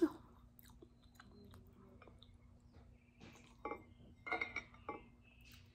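Metal spoon clinking and scraping against a ceramic bowl and plate, a cluster of short ringing clinks in the second half, with faint chewing and small clicks before it.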